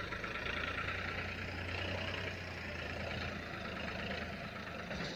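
Engines of earthmoving machinery running steadily: a low, even hum.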